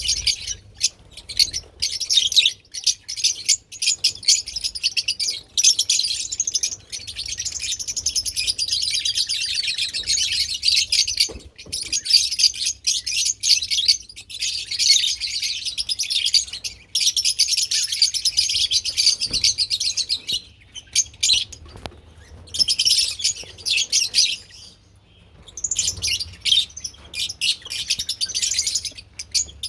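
Lovebirds chirping in a dense, rapid, high chatter, with a short pause a few seconds before the end.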